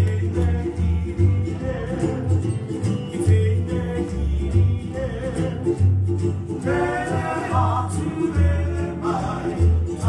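Hawaiian song playing for hula: plucked strings over a steady pulsing bass, with singing that stands out more in the second half.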